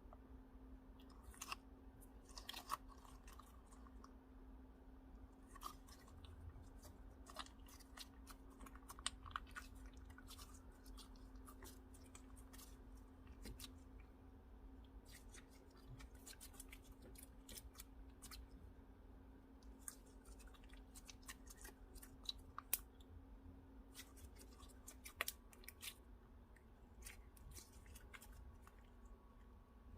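Slime being handled and kneaded: faint, scattered sticky clicks and small pops, over a steady low hum.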